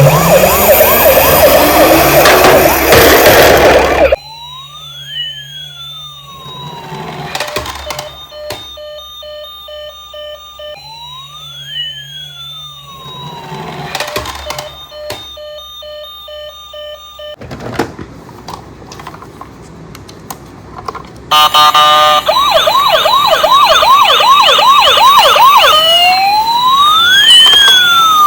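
Electronic sirens of toy emergency vehicles. A loud fast warbling siren cuts off after about four seconds, then a quieter slow wail rises and falls about every seven seconds, and near the end a fast warble starts again, overlapped by another slow rising and falling wail.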